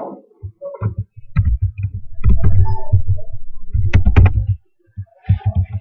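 Computer keyboard typing, heard mostly as short low knocks through the desk, with a few sharper key clicks about four seconds in and a loud low rumble through the middle.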